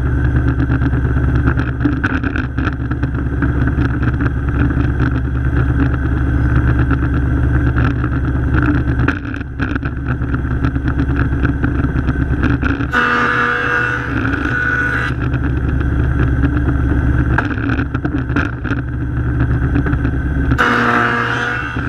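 Jointer running at a steady pitch, its motor and cutterhead humming. Twice, about halfway through for two seconds and again near the end, a board is fed across the cutterhead and a harsher, higher cutting noise rises over the hum.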